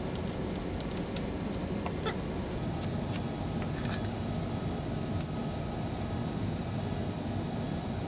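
Steady low background rumble of the workshop, with a few scattered light metallic clicks and taps from hand work with tools on an aluminium printer frame.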